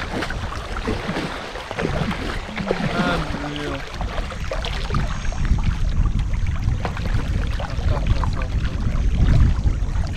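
Wind rumbling on the microphone, much stronger from about four seconds in, over water and small knocks from a kayak. Faint voices in the first few seconds.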